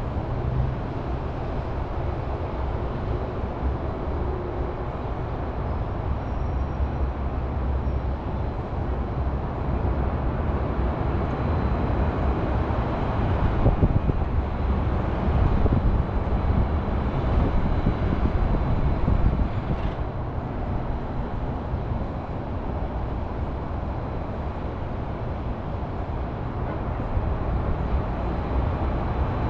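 Steady hum of city highway traffic, growing louder for several seconds about halfway through, then easing back.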